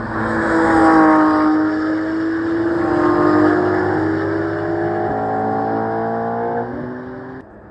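Several sports cars accelerating past on a race track, a Porsche 911 GT3 RS loudest a second in, then more cars following; the engine notes climb steadily in pitch. The sound cuts off abruptly near the end.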